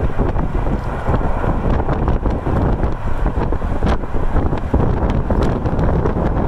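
Strong wind buffeting the microphone: a loud, gusting rumble with no steady tone in it. A couple of brief faint clicks come through it about four and five seconds in.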